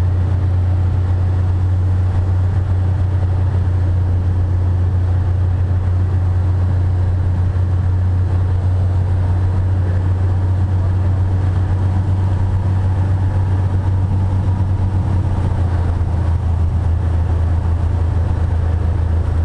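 Cessna T-41's 210 hp engine and constant-speed propeller droning steadily, heard inside the cockpit with airflow noise over the cabin.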